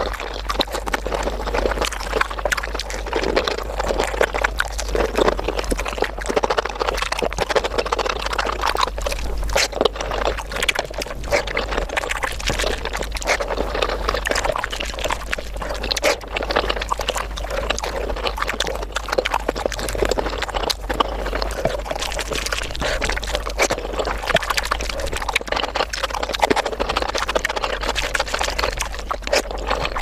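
Mukbang eating sounds of palak paneer and rice played back sped up: a dense, continuous run of fast wet chewing and mouth smacks, with fingers squelching through the gravy-soaked rice.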